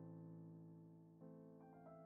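Quiet background piano music: slow held chords, with a new chord about a second in followed by a few higher notes.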